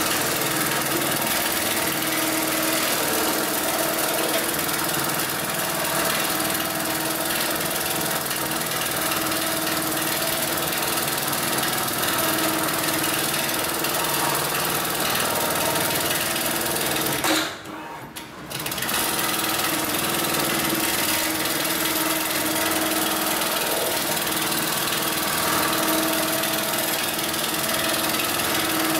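Hightex MLK600 automatic programmable bar-tacking machine sewing heavy webbing for ratchet straps, running steadily at speed as it stitches a box pattern. It stops for about a second partway through, then starts sewing again.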